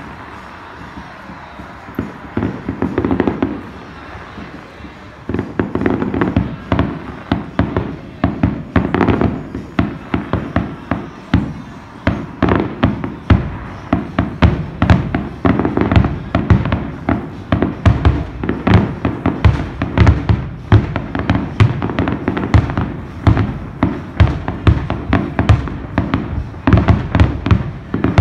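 Aerial fireworks shells bursting over the water, a series of sharp bangs and deep booms. A few come spaced out at first, then they fall into a rapid barrage of several bangs a second from about halfway on.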